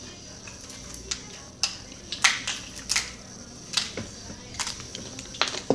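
Doritos tortilla chips being chewed close to the microphone: a run of sharp, irregular crunches that starts about a second in.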